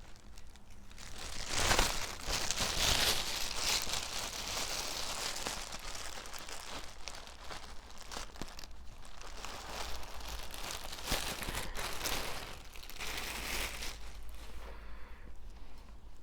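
Packaging being handled and unwrapped: irregular crinkling and rustling, loudest a couple of seconds in and again near the end, with a brief tearing sound.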